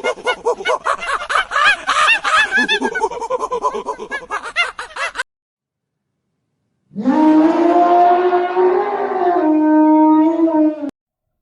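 Animal calls: a dense run of many short, rapid, arching calls, then, after a cut to silence, one long steady call held for about four seconds.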